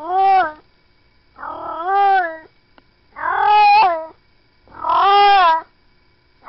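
A cat meowing over and over: four drawn-out meows, each rising and then falling in pitch, about one every second and a half, with quiet gaps between.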